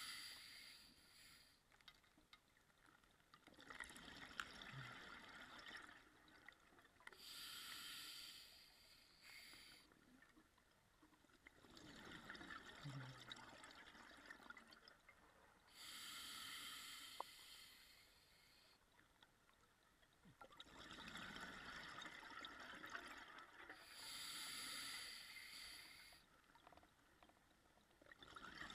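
Scuba diver breathing underwater through a regulator, heard faintly: a hiss of inhaled gas alternating with a rush of exhaled bubbles, one breath about every eight or nine seconds, three breaths in all.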